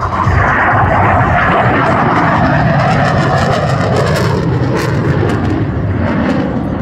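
Loud, steady rushing jet noise from an F-22 Raptor's twin F119 turbofan engines as the fighter climbs steeply.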